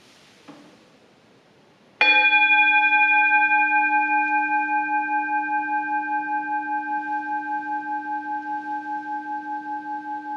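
Singing bowl struck once about two seconds in, then ringing on with several steady overtones that pulse slowly and fade gradually. It is struck to open a period of silent meditation.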